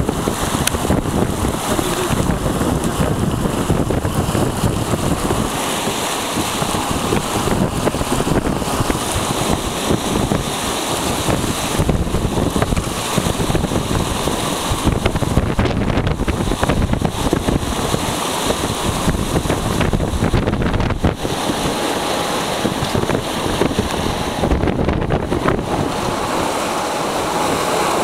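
Wind buffeting the microphone over the steady rush of water and breaking waves along the hull of an MG Spring 25 sailing yacht running fast downwind in rough seas.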